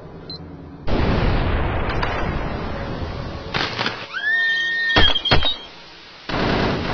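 Sound effects: a sudden crashing burst of noise about a second in that slowly fades, then a short tone that glides up, holds and drops away, two sharp cracks, and the noise starting again near the end.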